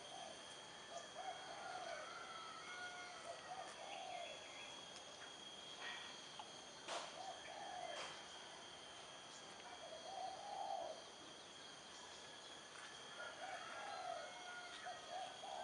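Tropical outdoor ambience: a steady, high, continuous insect drone from crickets or cicadas, with short rising-and-falling bird calls repeated in clusters throughout, and a couple of sharp clicks midway.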